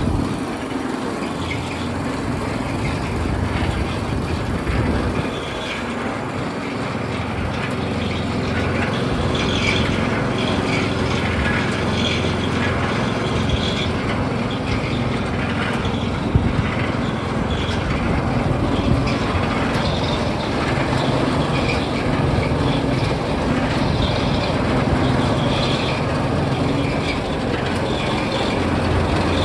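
Gas engine of a vintage custom-built gold trommel running, with its drum turning: a steady mechanical rumble with light scattered rattling, and a couple of sharp knocks past the middle.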